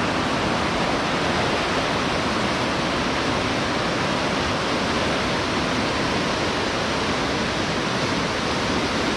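River rapids rushing over rocks, a steady, unbroken noise of white water.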